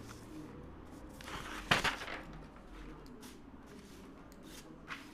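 Sheets of paper on a clipboard being turned and handled: several short rustles, with one sharper crackle of paper about a third of the way in.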